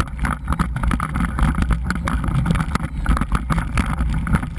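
Wind rushing over the microphone of a camera mounted on a moving dog sled, with rumbling and scraping as the sled runs over snow.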